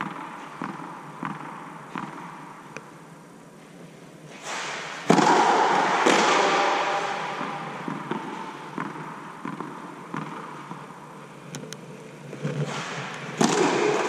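Tennis ball bounced on a clay court several times, then sharp racket strikes on the ball about five seconds in and again near the end, each ringing on in a long echo through the air-dome hall.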